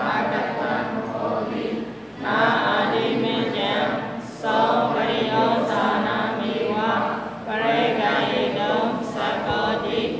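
Pali text recited in a chanting tone, in four long phrases with short breaks between them.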